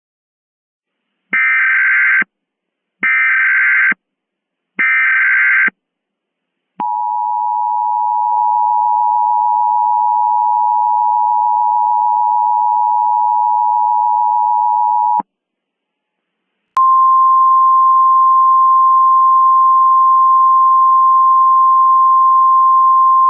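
Emergency Alert System tones: three short bursts of screeching digital data header, then the two-tone EAS attention signal held for about eight seconds. After a brief gap a single steady alert tone starts and keeps going.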